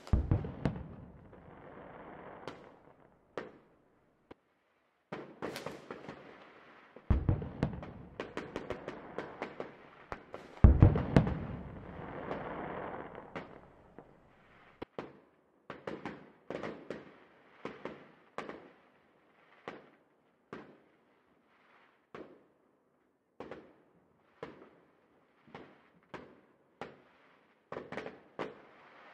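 Fireworks going off: three heavy booms with crackling in the first dozen seconds, then single sharp bangs about once a second.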